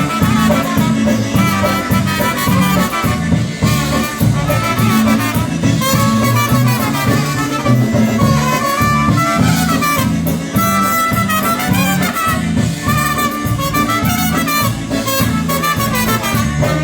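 Polka band playing live: an instrumental introduction with a steady oom-pah bass beat and horn-like melody lines, leading into a Polish-language vocal number.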